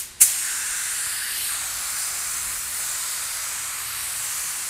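Compressed-air paint spray gun spraying a light dust coat of paint over PU primer as a guide coat for sanding. A steady hiss starts sharply just after the beginning and runs on evenly.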